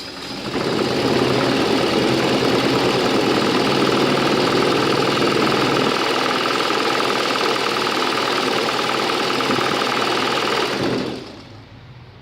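Butterfly sewing machine running steadily at speed to wind thread onto a bobbin; it speeds up at the start and stops near the end.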